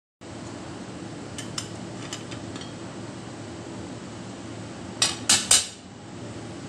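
Aluminium cooking pot and its metal lid clinking as they are handled: a few light clicks, then three sharp metallic clinks in quick succession about five seconds in, over a steady background hum.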